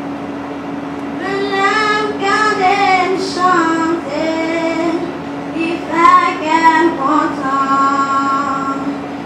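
A young girl singing solo into a microphone, starting about a second in, with long held notes and pitch slides, over a steady low tone.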